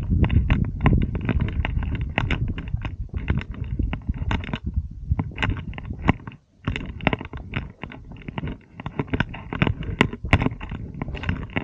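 Footsteps crunching and scraping on rock and loose stones as a hiker scrambles down a steep slope, heard through a body-worn camera, with irregular knocks and a low rumble on the microphone. The steps stop for a moment a little past halfway.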